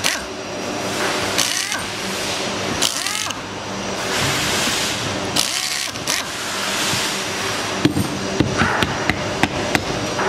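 Metal parts of a power tool's gear head being handled and taken apart by hand, over a steady background hum, with a run of sharp clicks and clinks near the end as the housing comes off.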